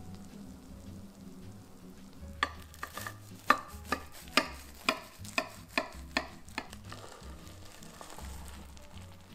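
A knife cutting through the crisp baked panko-crumb topping of a casserole: a run of sharp crunches, about two a second, starting a couple of seconds in and stopping well before the end.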